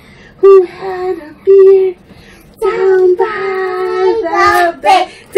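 A young girl singing a song in a run of held notes, the longest held for more than a second midway.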